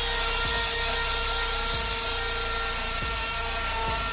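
Hammer drill running steadily, boring a hole into brick for a Tapcon masonry screw, with a constant high motor whine and hiss.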